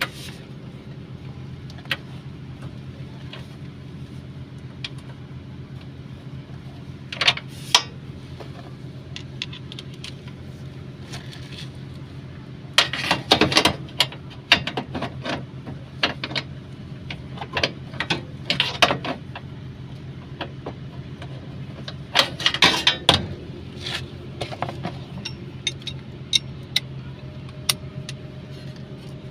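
Hand tools and small metal parts clinking and rattling in irregular clusters over a steady low hum.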